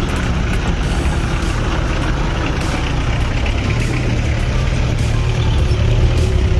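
Off-road 4x4 vehicle engine running with a steady low rumble.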